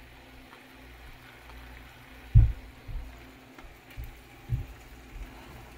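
Salmon steaks starting to fry in olive oil that is only beginning to heat: a faint, steady sizzle. Several short low bumps break into it, the loudest about two and a half seconds in.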